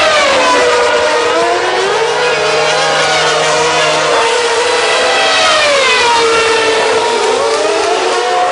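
Formula One cars' high-revving V8 engines, several at once. Their pitch drops sharply just after the start, swoops down again about five seconds in, then rises near the end, as the cars pass by and change revs.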